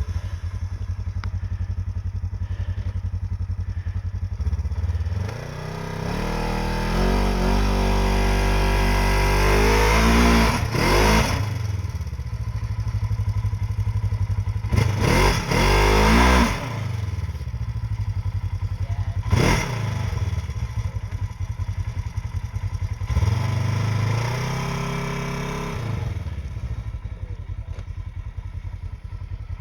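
Snowmobile engine running, revving up and settling back several times, with sharp bursts of revs about ten, fifteen and nineteen seconds in.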